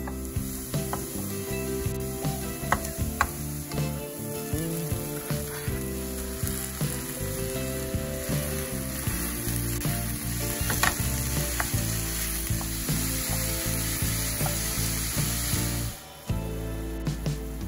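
Chopped onion, grated carrot and ground meat sizzling in olive oil in a nonstick frying pan, with a wooden spatula clicking and scraping against the pan as it is stirred. The sizzle cuts off suddenly near the end.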